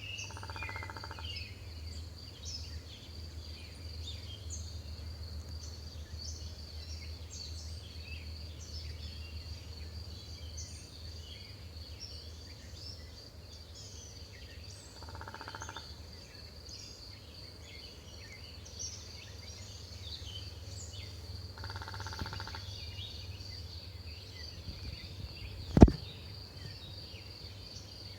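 Many small birds chirping over a steady, high insect trill, with three short buzzy calls spread through. Near the end there is a single sharp knock, the loudest sound here.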